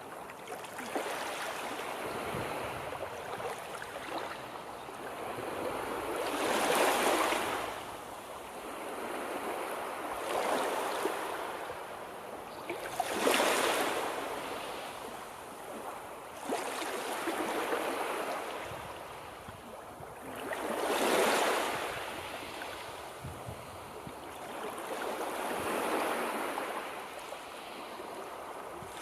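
Surf: a wash of noise that swells and fades every six to eight seconds, like waves breaking and running back on a shore.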